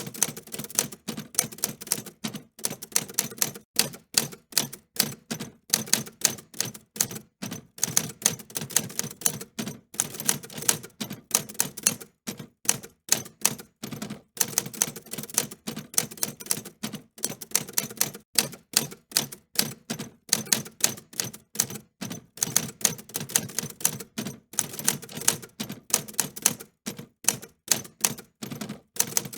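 Typing on a mechanical typewriter: rapid, irregular runs of sharp key clacks, several a second, broken by short pauses.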